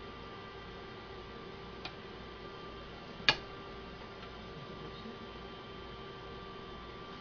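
Steady low electrical hum with a faint hiss, broken by a sharp click about three seconds in and a fainter click a little before two seconds.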